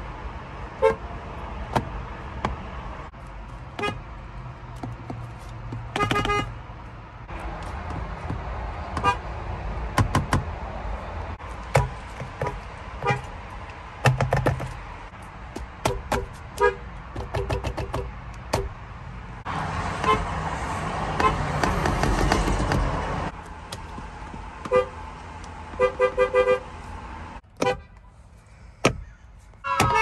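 Car horns of several different cars, among them a Hyundai and a Mazda, honked one after another. Most are quick short taps, some in fast clusters, with a few longer honks. A few seconds of steady rushing noise run in the middle.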